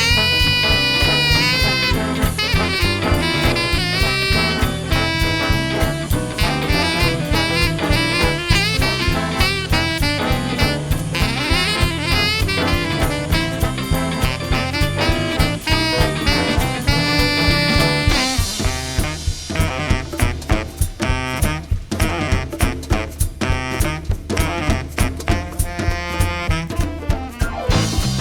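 An 18-piece big jazz band playing a swing number, with saxophones and brass over drum kit and bass. About two-thirds of the way through, the sustained horn lines give way to short, punchy rhythmic hits.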